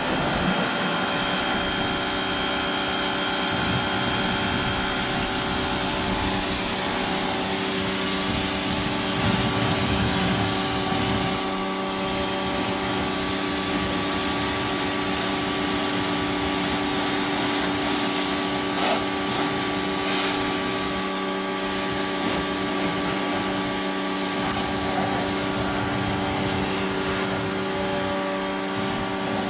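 Pressure washer running steadily, its motor humming under the hiss of the water jet as it rinses soap off the body of a side-by-side UTV. The hum changes pitch a little about a quarter of the way through.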